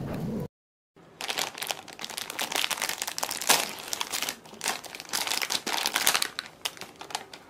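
Plastic film wrapper of a packaged Pokémon bread crinkling as it is handled and pulled open. The crinkling starts about a second in and runs on in quick, irregular crackles.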